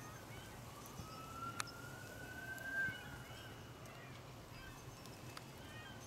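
Faint emergency-vehicle siren in the distance, one slow wail rising in pitch and then sinking away, with a couple of faint clicks about a second in.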